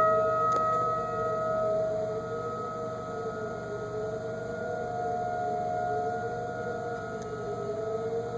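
Federal Signal 2001 outdoor warning siren sounding a fast wail for its monthly test: a sustained tone whose pitch wavers up and down about every two seconds.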